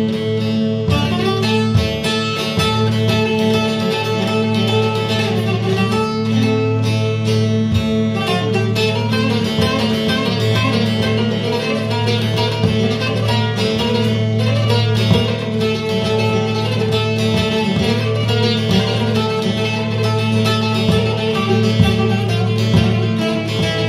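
Instrumental music played on a plucked string instrument, with quick melodic picking over steady low notes held underneath.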